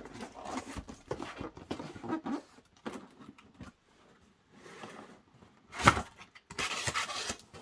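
Cardboard box being handled: rustling and small knocks as it is lifted and laid down, one loud thump about six seconds in, then a short scratchy rustle of cardboard near the end.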